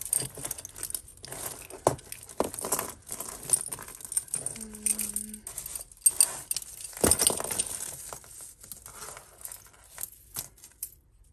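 Costume jewellery (metal chains, beads and glass pieces) jangling and clinking as it is handled and dropped into piles: an irregular run of small clicks and chinks.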